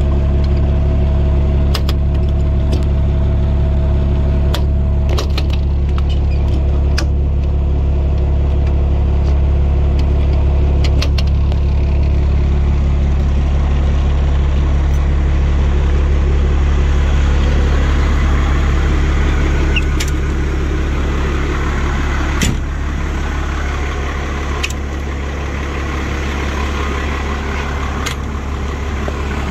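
A fire pumper's Cummins diesel engine idling steadily, with a few sharp clicks and knocks over it, the loudest about two-thirds of the way through.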